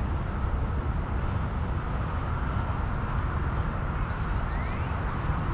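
Steady low outdoor background rumble with no distinct events, with two faint short rising chirps near the end.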